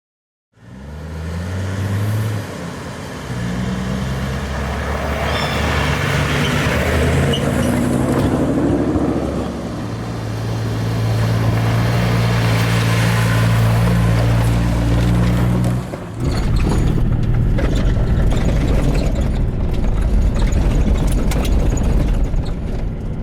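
Four-wheel drive towing a boat trailer pulls away, its engine note climbing and dropping through several gear changes. About two-thirds through the tone gives way to a rough, rattling rumble of tyres on a corrugated gravel road.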